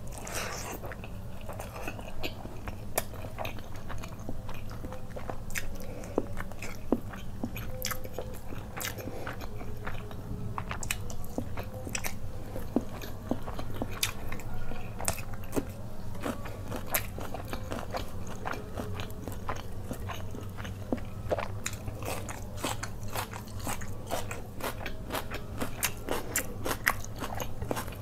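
Close-miked eating sounds: a person chewing and crunching mouthfuls of fried rice and butter chicken eaten by hand, with many sharp, wet clicks and smacks. A steady low hum runs underneath.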